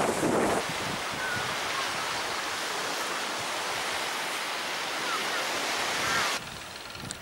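Steady rushing hiss of wind and surf on a sandy beach, with wind buffeting the microphone in the first half-second. The hiss cuts off suddenly near the end, leaving a quieter background.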